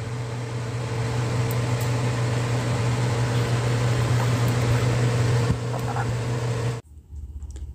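Steady whirring hum and rushing air of an electric fan running, with a glass electric kettle heating water beside it. It cuts off suddenly near the end.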